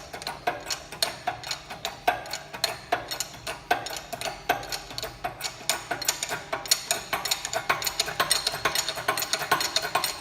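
Rapid metallic clicking, several clicks a second and uneven in strength, from the tools at work while the old hub bearing is pressed out of the hub.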